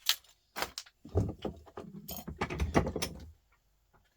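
Small metal scrap and hand tools being handled: a couple of sharp clicks, then about two seconds of clattering and knocking as brass and electronic scrap pieces are worked with pliers and sorted.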